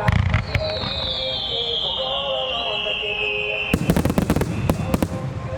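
Starmine fireworks display: deep booming shell bursts at the start, then a long whistling firework falling steadily in pitch for about three seconds, followed by a rapid run of sharp bangs and crackles.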